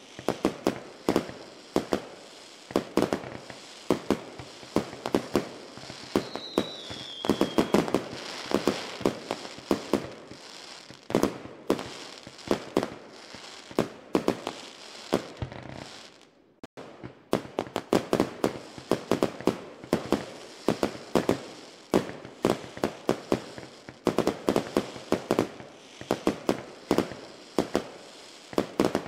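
Fireworks and firecrackers going off in rapid succession, sharp bangs and pops several a second. About six seconds in there is a brief falling whistle, and just past halfway a momentary gap.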